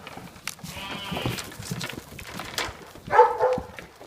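Dogs whining and yelping excitedly, with a louder, longer cry about three seconds in.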